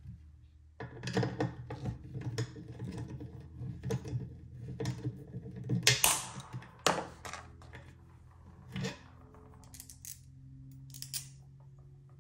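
Small metal clicks and rattles as a cabinet knob and its screw are fitted and turned by hand through a white cabinet door, with a couple of sharper knocks about six and seven seconds in.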